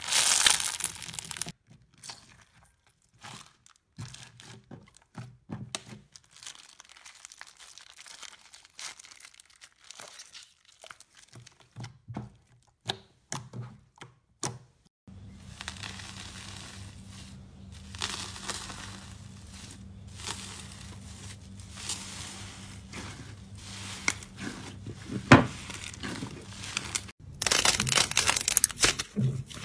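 Hands squeezing and pulling apart slime. There is loud dense crackling and popping at first as a crunchy sponge-textured slime is crushed, then quieter scattered sticky clicks and squelches over a faint steady hum. Loud crackling and tearing comes again near the end as a thick slime is stretched apart.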